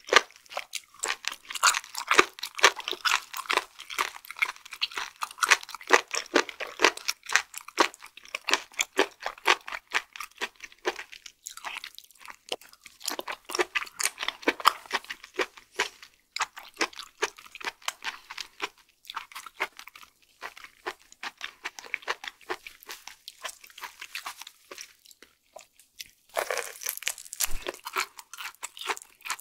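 Close-miked chewing of raw flatfish sashimi: a dense run of wet mouth clicks and crunches from the firm, springy flesh, with a short lull near the end.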